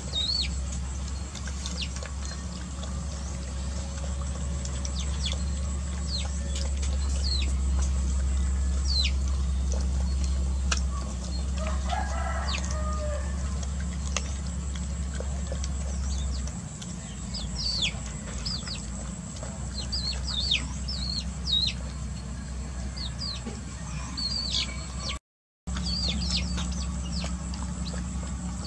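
Young chickens peeping: many short, high, falling cheeps repeated throughout, with a lower chicken call about twelve seconds in.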